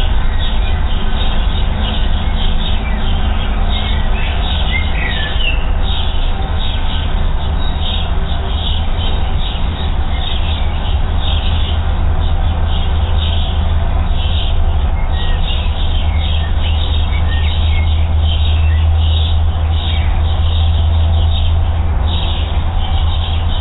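Small songbirds chirping, short high calls repeated again and again, over a loud, steady low rumble.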